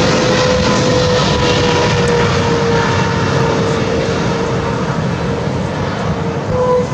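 Boeing 777-300ER's GE90-115B turbofan engines on final approach to landing: a steady jet rumble carrying a whine that drifts slowly lower in pitch and eases off slightly near the end.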